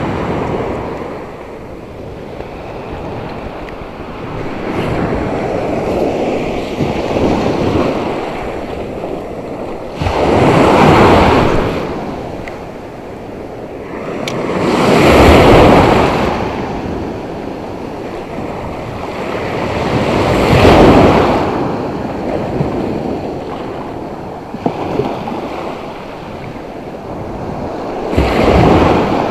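Sea surf breaking on the beach: repeated waves, each swelling up and falling away over a second or two, with wind on the microphone.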